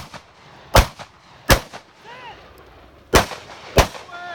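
Four rifle shots in two pairs, each pair about two-thirds of a second apart, with a pause of about a second and a half between the pairs; each shot is sharp with a brief echo.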